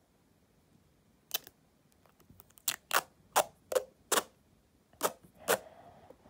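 A quick series of about eight sharp clicks and knocks, irregularly spaced, starting about a second in.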